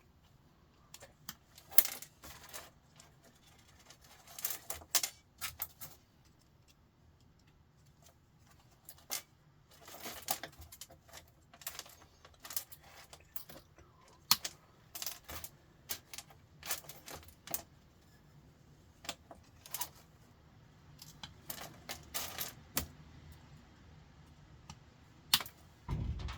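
Irregular sharp clicks and small metallic clinks, with quiet gaps between, as small metal scrap parts of a sandwich maker are cut and handled.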